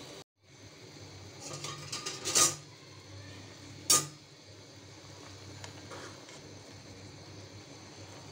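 A metal utensil knocking and clinking against an aluminium pot of boiling instant noodles: a run of clattering knocks that builds to a loud one about two and a half seconds in, then a single sharp clink about four seconds in.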